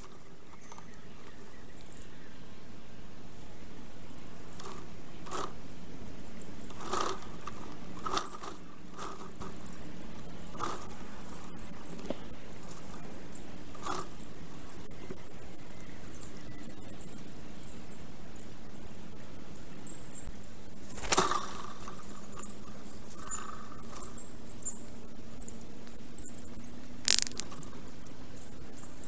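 Forest ambience from a nest-camera microphone: many very high, squeaky bird chirps over a steady hiss, broken by sharp clicks and knocks. A run of louder, evenly spaced knocks comes in the last several seconds.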